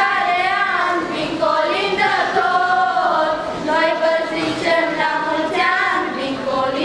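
A girl's voice singing a Romanian colind (Christmas carol) in long, held melodic lines.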